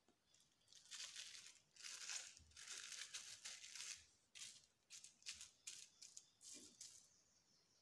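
Thin plastic food wrap crinkling and rustling as a hand handles it, in a run of short, uneven rustles.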